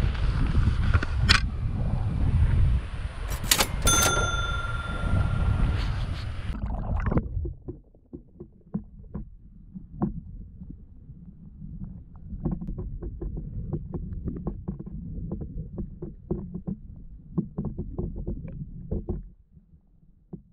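River current and wind rushing over a camera held at the water's surface. About seven seconds in, the camera goes under and the sound turns muffled: a low underwater rumble of flowing river water with many scattered faint clicks and ticks.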